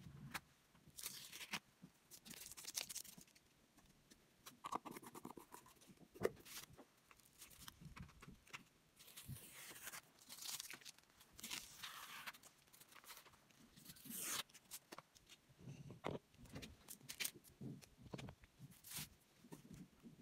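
Masking tape being peeled off the border of a painting on paper: several quiet ripping pulls, the longest about 9 to 10 s and 14 s in, with crinkling paper in between.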